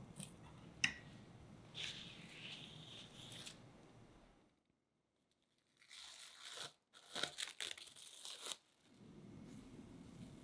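Plastic cling film crinkling and rustling as it is stretched and pressed over a glass bowl, in two bursts; the second, about six seconds in, has sharper crackles.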